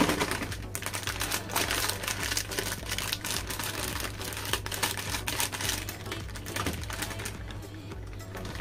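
Metallised plastic snack packet crinkling as it is handled and snipped open with scissors, then tipped out, its crunchy snacks and small toys clattering onto the table in a run of quick clicks and rattles.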